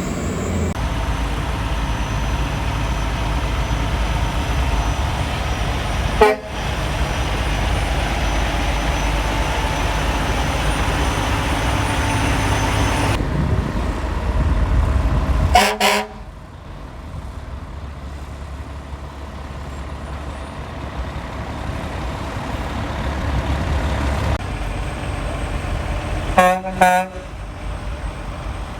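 Big trucks honking their horns as they pass: one short blast about six seconds in, a quick double toot midway, and another double toot near the end, over the steady rumble of truck engines and road traffic.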